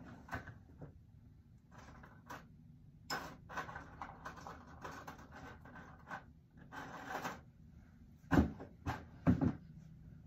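Rustling and clattering as someone handles things while getting dressed, then three loud knocks in quick succession near the end.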